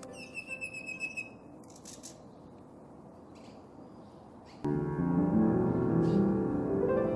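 Faint bird chirps and a short whistled note in the first second or so, with a few more chirps in the quiet after. About four and a half seconds in, background piano music starts suddenly and plays louder than the birds.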